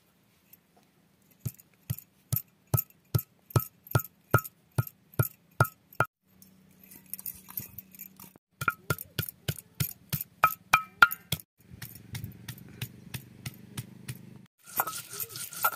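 Stone roller knocking down on a flat grinding-stone slab, crushing whole garlic, onion and dried chillies, about two to three sharp strikes a second. Near the end the roller is worked back and forth over the slab with a steady gritty grinding sound.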